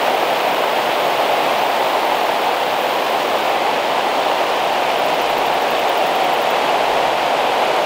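Heavy rain falling in a steady, even hiss on the plastic roof of a hoop house.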